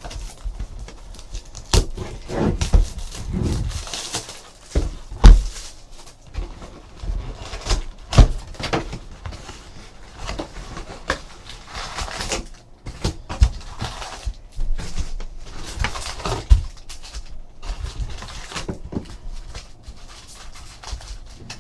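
A sealed trading-card box being opened and its packs handled: plastic wrapping crinkling, with irregular knocks and taps of cardboard.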